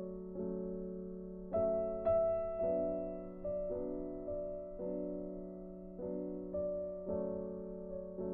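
Gentle background keyboard music: slow sustained chords, with a new one struck every second or so.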